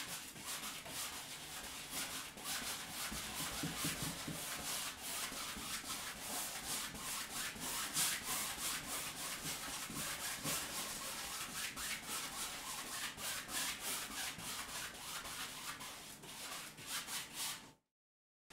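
Wide bristle paintbrush scrubbing paint onto a stretched canvas in rapid, repeated strokes, a dry scratchy brushing that stops just before the end.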